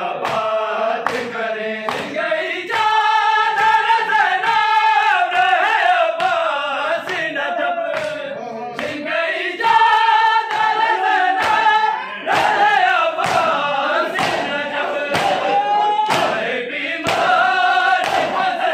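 Men's voices chanting a noha (Shia lament) together, keeping a steady beat with sharp hand slaps of matam: bare-chested mourners striking their chests in time.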